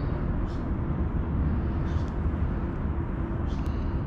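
Steady low background rumble, with a few faint small ticks over it.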